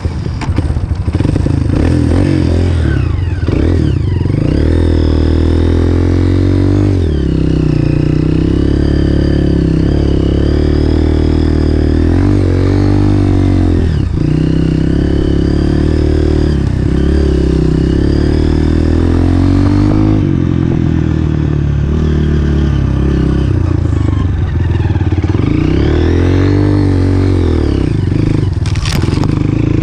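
Dirt bike engine under way, revving up and dropping off over and over in pitch as the rider works the throttle and gears.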